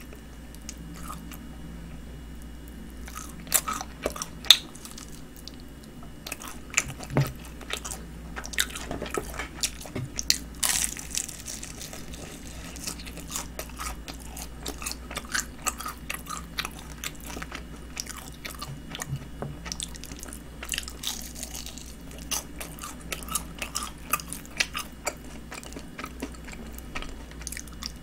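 Honey-glazed fried chicken being bitten and chewed close to the microphone: crisp crunches of the fried coating and chewing, loudest about four seconds in.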